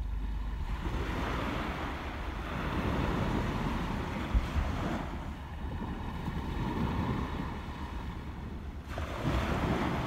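Sea waves washing on the shore, swelling and easing twice, with wind buffeting the microphone. A brief knock about four and a half seconds in.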